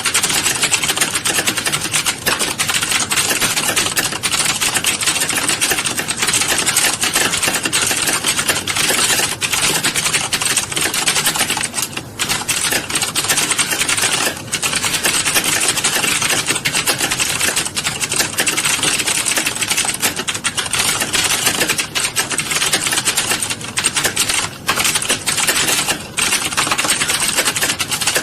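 Very fast, continuous typing: keys clattering in a dense stream, broken by a few short pauses.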